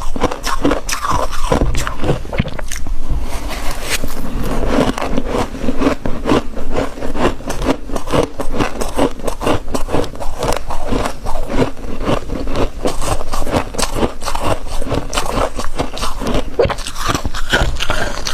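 Thick fluffy freezer frost crunching in a rapid, dense run of crackles, with no pause.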